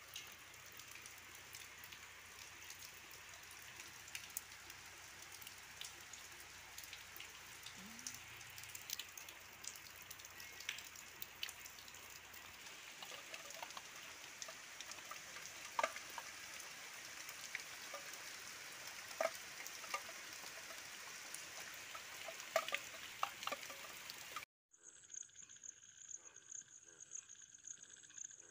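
Steady rain falling on wet ground and leaves, with sharp individual drips standing out, loudest in the middle and later part. About 24 seconds in, the rain cuts off suddenly and a steady high-pitched drone takes over.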